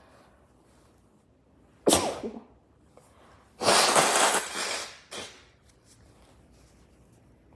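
A person sneezing into a shirt: a sudden sharp sneeze about two seconds in, then a longer, breathier burst lasting about a second and a half, and a short final burst just after it.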